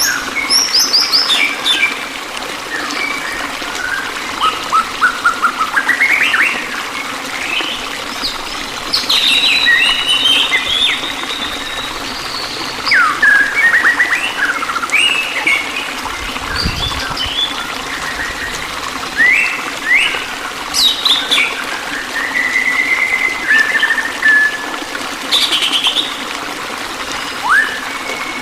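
Several songbirds chirping and calling in quick, varied notes and short whistles, over a steady hiss of running water.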